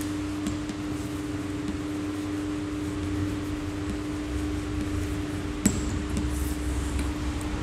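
Steady room hum and hiss, like a running fan, with faint taps and scratches of chalk writing on a blackboard and one sharp click about three quarters of the way through.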